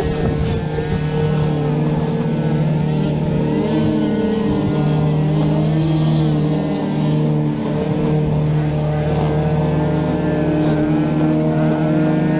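Small petrol engine of a trimming tool running at speed, holding a fairly steady pitch with slight rises and dips.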